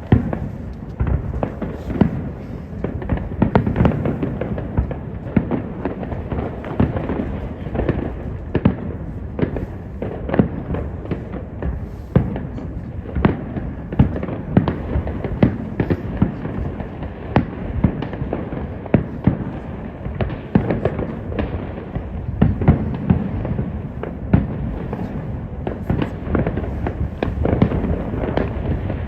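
A fireworks display: a continuous barrage of shell bursts and bangs, many every second, over a steady low rumble.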